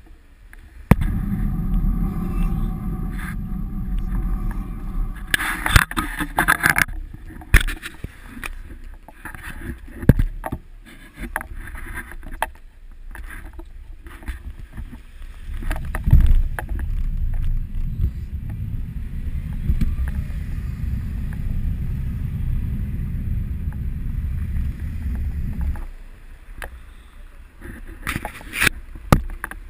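Wind buffeting a bike-mounted action camera's microphone while riding, a loud low rumble that eases for a while midway and drops away near the end, with scattered knocks and rattles from the bicycle and mount over the road surface.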